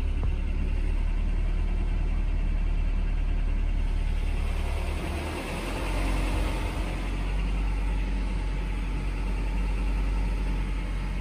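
Ford petrol engine running under light throttle with a clattering rattle from the engine. The owner found the cause to be a vacuum hose that was not pushed on properly. The engine note dips about five seconds in, then picks up again.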